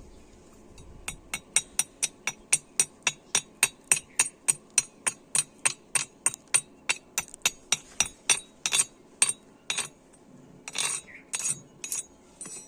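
Chipping hammer striking a stick weld bead to knock off the slag, rapid, even metallic taps about three to four a second, then a few longer, rougher strokes near the end.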